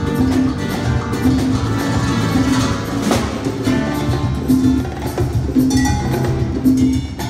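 Live flamenco-style Latin music: conga and bongos played by hand, with a rhythmic pulse, over acoustic guitar.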